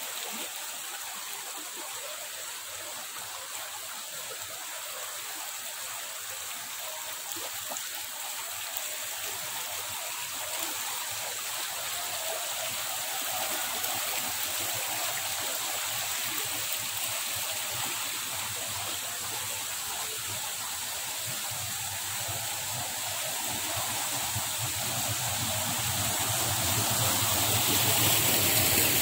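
Water rushing steadily along a narrow stone-lined channel, swirling over rocks, growing louder near the end.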